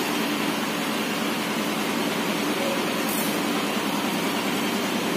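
Steady rushing noise at an even level, with a short high hiss about three seconds in.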